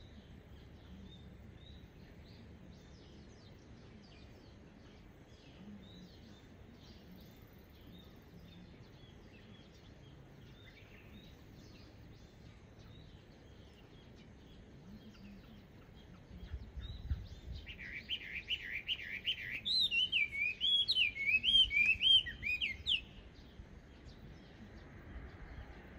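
Chinese hwamei singing: faint scattered chirps at first, then about two-thirds in a loud run of rapid repeated notes that turns into swooping whistled phrases rising and falling in pitch, lasting about five seconds.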